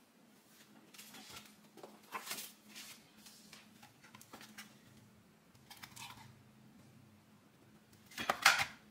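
Light knocks and rustles of items being handled on a kitchen counter, with a louder rustle near the end, over a faint steady hum.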